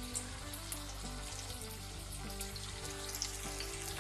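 Hot oil sizzling and crackling as marinated Chicken 65 pieces are deep-fried in a kadai, with more pieces being dropped in one by one. Background music plays over it.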